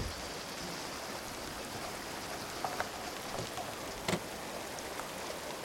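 Steady hiss of water, with a single sharp click about four seconds in.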